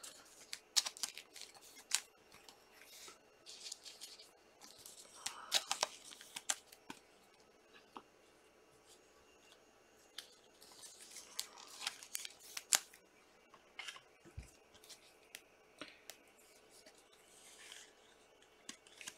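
Glossy Topps Chrome trading cards being flipped and slid one behind another in the hand: scattered sharp clicks and short swishes of card stock rubbing on card.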